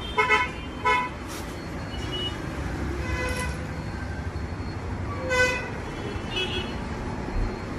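Several short vehicle horn toots from passing road traffic, over a steady low traffic rumble.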